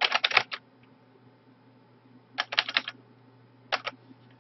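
Typing on a computer keyboard: a quick flurry of keystrokes at the start, another short run about two and a half seconds in, and a couple of strokes near the end, over a faint steady low hum.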